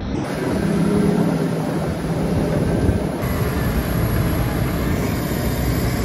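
A Grimme potato harvester and its tractor at work: steady machinery noise over a low engine hum, the sound changing about three seconds in.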